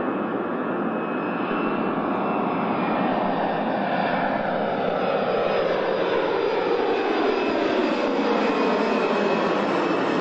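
Jet engines of a low-flying Boeing 747 air tanker running loud as it passes close overhead, their whine falling steadily in pitch through the second half as the aircraft goes by.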